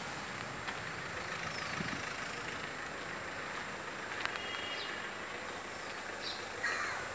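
Steady street traffic noise, an even hiss with no single engine standing out, with a few faint short high chirps in the second half.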